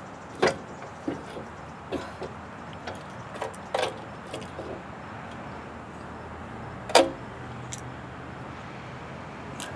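Scattered metallic clanks and knocks from a Hi-Lift jack and its steel mount being handled, the loudest about seven seconds in, over a steady low hum.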